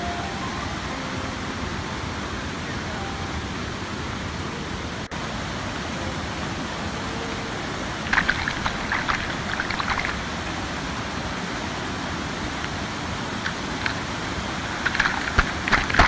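Water rushing and cascading down flooded stone steps below a waterfall: a steady rush, with louder close splashing about eight seconds in and again near the end.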